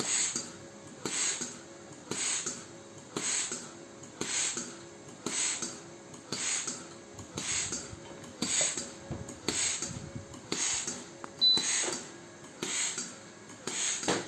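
Homemade ventilator machine cycling about once a second. Each stroke brings a short hiss and a motor whine that steps up and down in pitch the same way every time.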